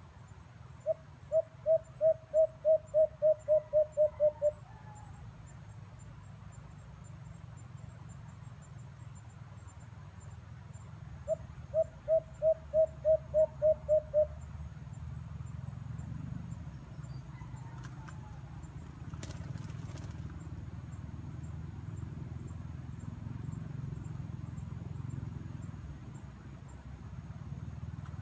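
A bird calls twice: each time a quick, even run of about a dozen short low notes, about three a second, the second run about ten seconds after the first. A steady insect drone runs underneath.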